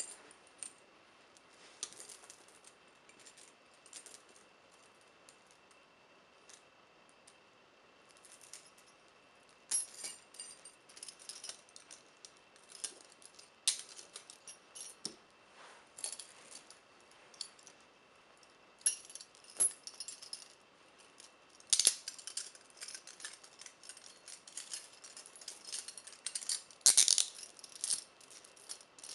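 Steel chains and metal handcuffs clinking and jingling as they are handled: scattered clinks at first, growing busier from about ten seconds in, loudest near the end.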